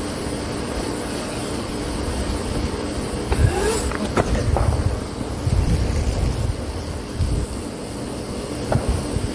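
Electric dirt bike, a Razor MX650 fitted with an 11,000-watt 80-volt Electro & Co. motor kit, riding past on pavement. Its motor whine rises in pitch about three and a half seconds in, with a few sharp clicks just after, over a low rumble of wind on the microphone.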